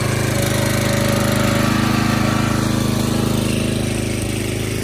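Small gasoline engine on a Huskee log splitter, a Briggs & Stratton, running steadily at a constant speed.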